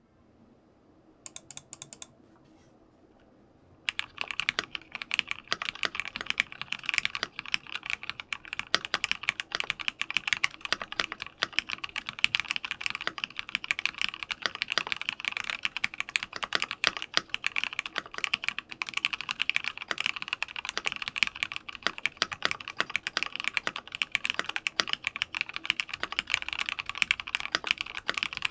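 IKKI68 Aurora mechanical keyboard with lubed Cherry MX Black linear switches being typed on: a few isolated key clicks about a second in, then a steady, fast run of keystrokes from about four seconds in.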